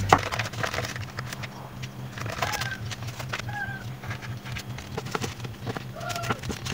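Baking paper crackling and rustling as it is lifted and folded over a soft cake roll, over a low steady hum. Three short chirps sound about two and a half, three and a half and six seconds in.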